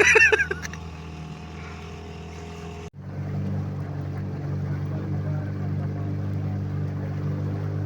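Small boat engine running steadily at an even pitch. The sound breaks off for a moment about three seconds in, then carries on louder.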